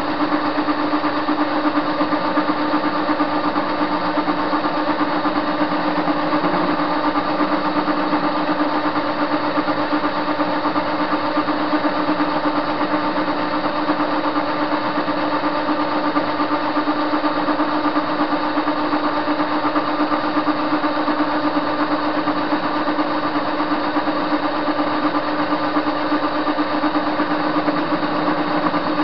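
Soviet-era TV-16 metal-turning lathe running steadily as it turns a metal bar blank. The motor and gearbox hum at an even pitch, with a few constant tones and no change in speed.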